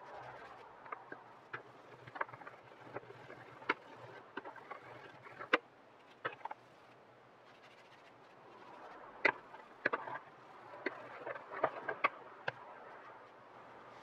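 A cloth rubbed along the handle of a carved olivewood spoon: a soft friction rustle with many small scattered clicks and taps of fingers and wood, busiest near the start and again in the second half.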